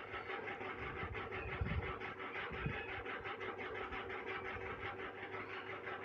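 Steady low background hiss and room noise with no speech.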